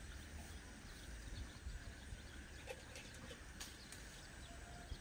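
Quiet outdoor ambience under a pear tree: a low rumble and faint bird calls, with a few soft clicks and leaf rustles from the branches as pears are reached for and picked.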